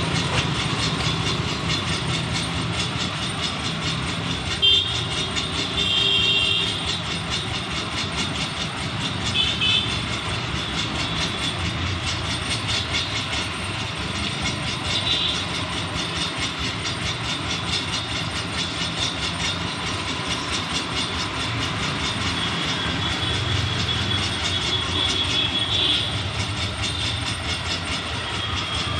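Mixed road traffic of scooters, motorcycles, auto-rickshaws and cars passing close by, a steady run of small engines and tyre noise. A few short high-pitched horn toots sound over it, about five and six seconds in, again near ten, fifteen and twenty-six seconds.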